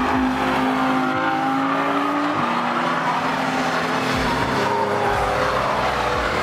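Track cars passing at speed, engines running hard at high revs; the main engine note steps down in pitch about two and a half seconds in.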